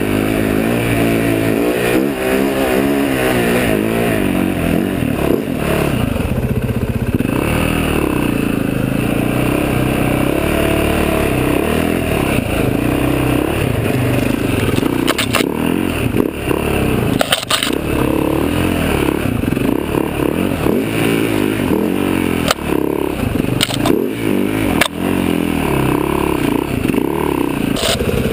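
Enduro dirt bike engine revving up and down continuously under the rider as it is ridden hard along a rough forest trail, with a few sharp knocks and clatters from the bike over the bumps.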